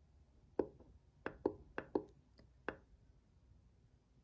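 About six sharp clicks over two seconds, uneven in spacing: a docking station's small settings button being pressed with a SIM card tool to step through its menu.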